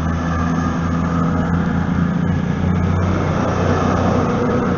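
Virgin Class 390 Pendolino electric train moving slowly past at close range: a steady low electric hum with wheel-on-rail noise and scattered light ticks.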